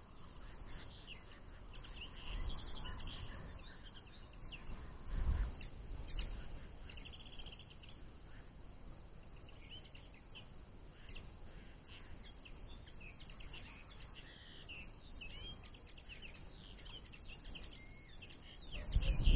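Common linnets twittering, with many short, high chirps and slurred notes. A low thump comes about a quarter of the way in, and loud rumbling handling noise near the end.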